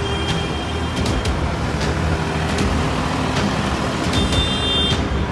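Farm tractors driving past in a convoy, their diesel engines running with a steady low drone. A brief high-pitched tone sounds about four seconds in.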